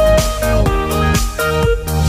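Background electronic music with a steady beat, about two beats a second, over held synth notes.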